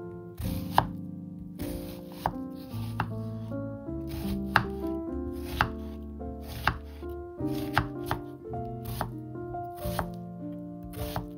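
Kitchen knife chopping on a cutting board in single, separate strokes about once a second, over background music.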